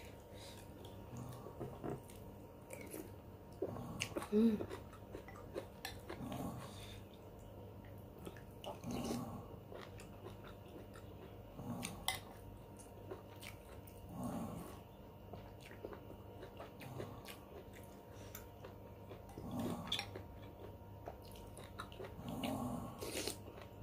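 Close-up eating sounds: chewing and mouth noises recurring every two or three seconds as spoonfuls of soup are eaten, with light clicks of a metal spoon against a ceramic bowl.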